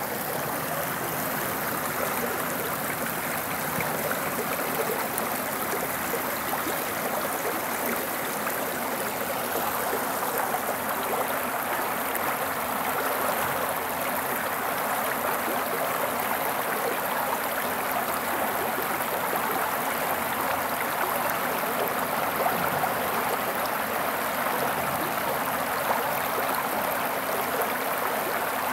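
A river flowing: a steady, unbroken rush of water.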